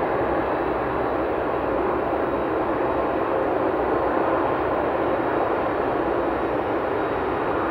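Boeing 767-300ER's twin jet engines running as the airliner rolls out along the runway after landing: a steady, even rushing noise.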